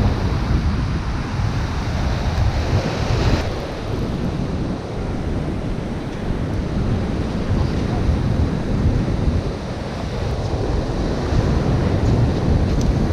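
Ocean surf washing on the beach, with strong wind buffeting the microphone. The rush of the water is loudest for the first three seconds or so, then eases.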